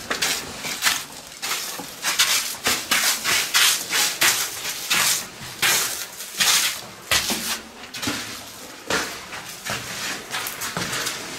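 Footsteps crunching and scuffing on a gritty floor and stairs, mixed with the rustle of padded jackets: a run of irregular crunches and scrapes, one or two a second.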